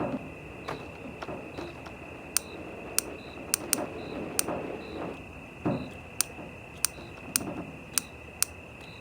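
Insects chirping steadily, with a run of sharp clicks through the middle and a few low crunches.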